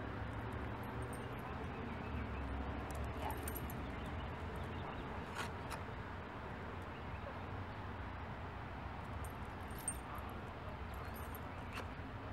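Steady outdoor background noise with a low rumble and a few faint clicks.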